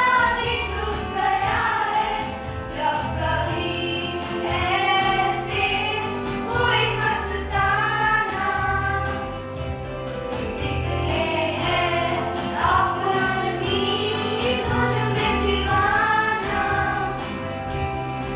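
A group of students singing a song together over instrumental accompaniment with a steady bass line.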